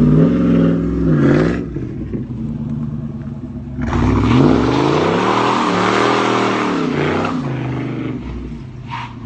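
Car engine revved hard: a short rev rising and falling in the first second and a half, then from about four seconds in a longer, louder full-throttle run with the pitch rising and falling over a loud rushing noise, fading as the car pulls away.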